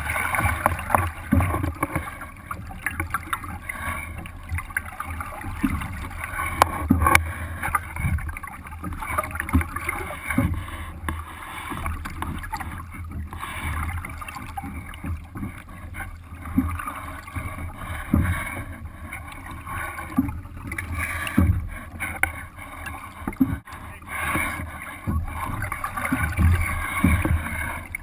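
Lake water slapping and gurgling against the hull of a Sunfish sailboat under sail, heard from a camera mounted on its deck: an irregular run of small splashes and hollow knocks.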